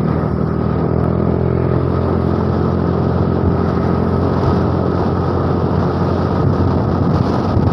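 Motor scooter running steadily at cruising speed, its engine drone under a constant rush of wind and road noise.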